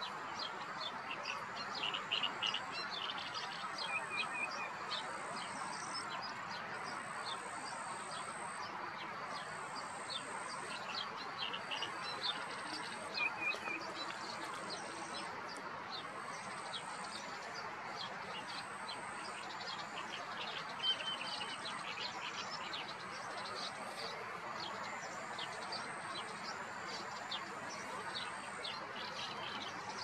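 Wild birds calling: many short chirps and a few brief whistled notes over a steady background noise.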